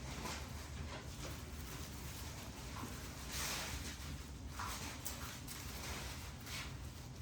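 XL pitbull puppies moving about at play, with a few short scuffling, rustling bursts, the loudest about halfway through, over a steady low hum.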